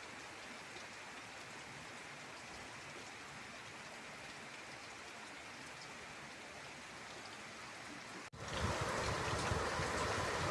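Heavy rain falling steadily. A little over eight seconds in the sound drops out for an instant and comes back louder and deeper, a fuller rushing noise.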